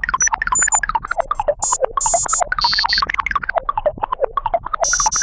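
A fast stream of short electronic synth blips, several a second and sliding a little in pitch, with brighter high-pitched chime-like bursts dropping in over them.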